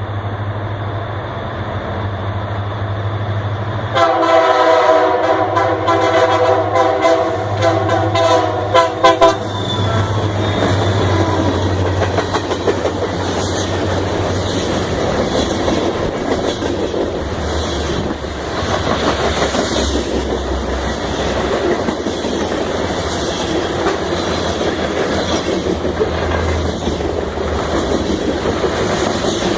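Union Pacific freight train: a low diesel rumble, then about four seconds in the locomotive's multi-note air horn sounds a chord for about five seconds, breaking into quick short toots at the end. After the horn, a steady rolling clatter of the train's cars passing on the rails.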